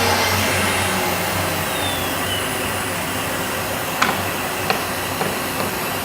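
CNC wood router running, a steady whooshing machine noise over a low hum. A few short sharp clicks come about four and five seconds in.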